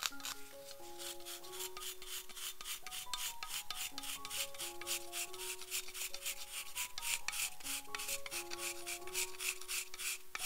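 A chocolate bar being grated over whipped cream: a quick, even run of rasping strokes, about five a second, as shavings fall onto the topping.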